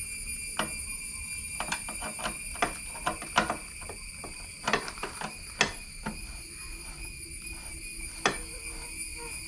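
A string of irregular sharp clicks and knocks, densest and loudest in the middle, over a steady high-pitched drone.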